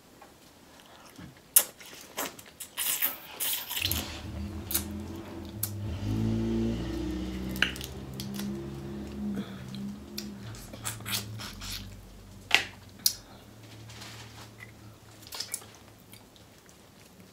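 Close-up, wet crackling and squelching of sauce-covered shrimp shells being peeled apart by hand, with sharp crackles and smacks scattered throughout. A low droning hum comes in about four seconds in and fades away near the end.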